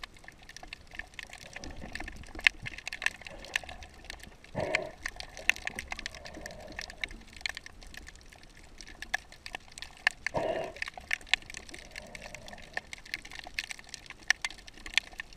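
Underwater ambience picked up through the camera housing: a dense, irregular crackle of small clicks, with two short water whooshes, one about five seconds in and another about ten seconds in.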